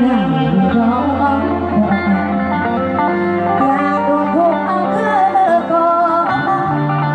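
Live stage band music: sustained melody notes, some sliding in pitch, over a steady bass line.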